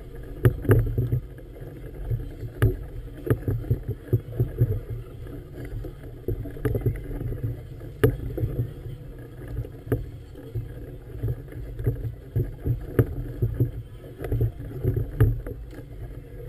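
Choppy harbour water slapping against the hull of a moored floating clubhouse, with a low rumble and many irregular sharp knocks and thumps, several a second at times.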